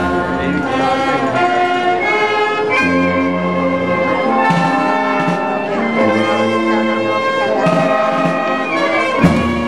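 Brass band playing, with long held notes and chords that change every second or so. There is a short knock about 9 seconds in.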